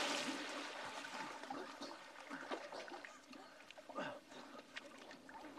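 Water splashing and sloshing around a child thrashing in a life jacket: the big splash of the plunge dies away over the first couple of seconds into softer sloshing and dribbling, with a few smaller splashes from his arms about halfway through.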